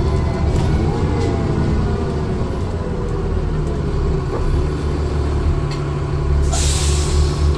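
Dennis Trident II bus engine and Voith automatic gearbox heard from on board, with a turbo whine falling away in the first seconds, then settling into a steady low drone. About six and a half seconds in, a loud hiss of compressed air lasts just under a second.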